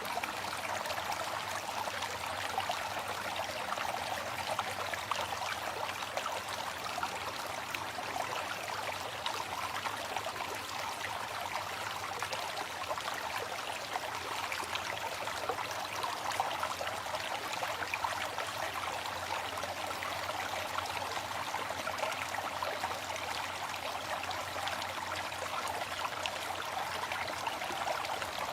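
Waterfall: a steady rush of falling water, even and unbroken, with little low rumble.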